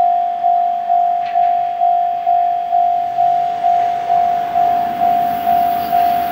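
Japanese electronic level-crossing warning bell ringing, one clanging tone struck about twice a second. The DE10 diesel locomotive's engine and wheels rise in the background near the end as it approaches.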